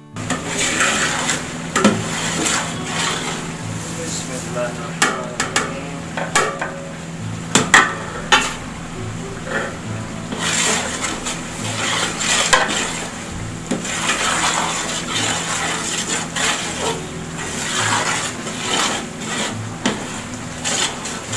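Metal ladle stirring and scraping through spiced onion-tomato masala in a large steel cooking pot, with irregular clinks and knocks of the ladle against the pot's sides over a steady hiss.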